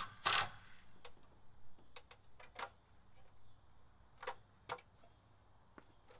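A short loud burst just after the start, then scattered light knocks and clicks as a hand tool is set down on top of a stepladder and the ladder is climbed down.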